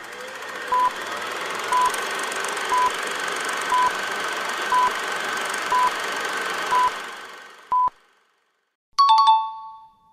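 Quiz countdown timer beeping once a second with short, high, steady beeps over a hiss that swells in over the first two seconds and fades out about eight seconds in. About a second later a bright two-note chime rings and dies away, the time-up signal before the answer is shown.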